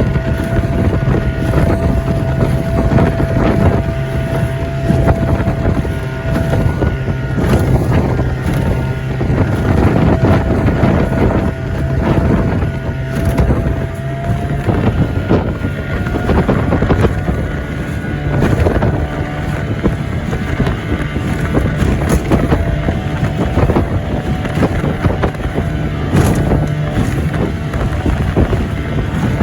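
Livingston boat's motor running steadily through rough water, with irregular knocks and splashes as the hull meets the waves and wind buffeting the microphone.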